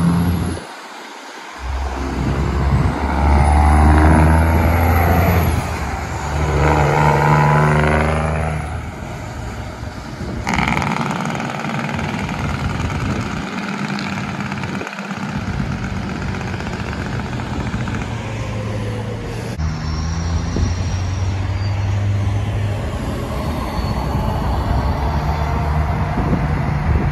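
Semi-truck diesel engines. One big rig runs loud and hard for the first several seconds in two pushes with a short dip between. The sound then changes abruptly to a steadier drone of truck engines and passing traffic.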